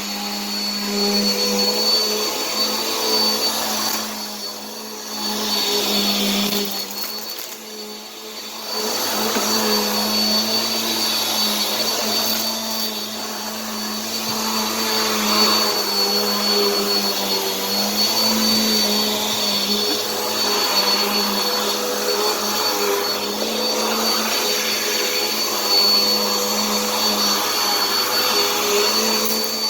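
Vacuum cleaner motor running steadily with a high whine over its hum, briefly quieter twice in the first several seconds.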